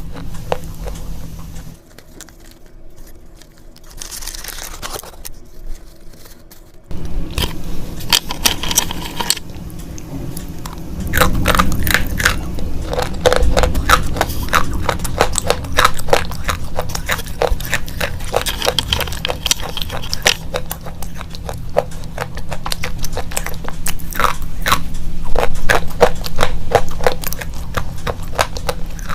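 Slate pencils being bitten and chewed, a dense run of sharp, brittle crunches and clicks; quieter for a few seconds near the start, then steady crunching, with a faint low hum under it.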